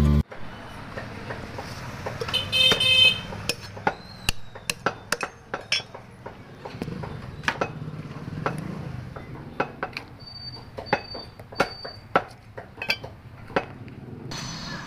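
Irregular sharp knocks and clicks of a knife and a plucked rooster being handled on a wooden chopping block, over steady street traffic noise, with a brief vehicle horn about two and a half seconds in.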